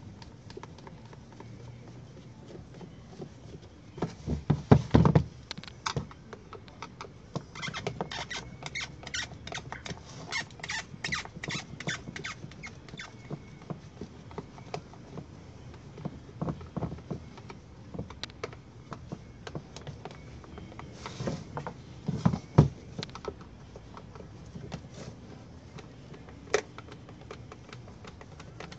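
Screwdriver turning out self-tapping screws from the plastic gearbox housing of a Makita HR2450 rotary hammer: small scrapes and clicks, with a run of quick ticks in the middle. Two louder knocks, about four seconds in and about 22 seconds in, the later one the loudest.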